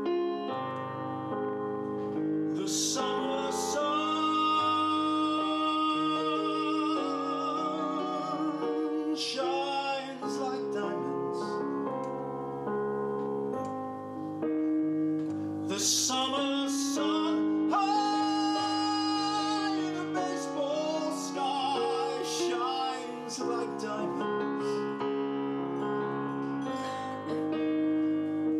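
A man singing a slow ballad, holding long notes with vibrato, accompanied by piano played on a Yamaha S90 ES stage keyboard.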